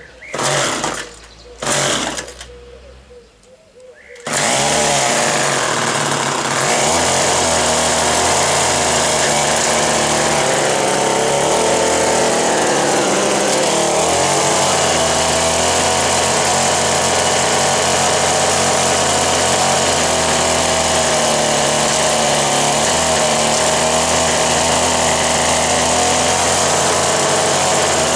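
Small O&R 1 hp two-stroke engine of a 1958 Little Wonder hedge trimmer being started. Two short loud bursts come in the first two seconds. About four seconds in it catches and then runs steadily.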